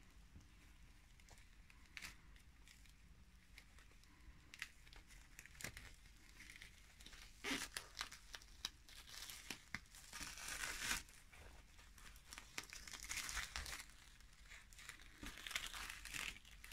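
Faint crinkling and tearing of adhesive tape being pulled off the roll and pressed down, mixed with rustling of polyester batting. It starts with a few light ticks, then comes in several short spells of rustling from about halfway through.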